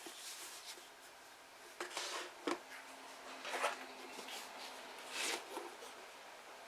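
Pages of an old book being turned by hand: several separate papery swishes, with a light tap about two and a half seconds in.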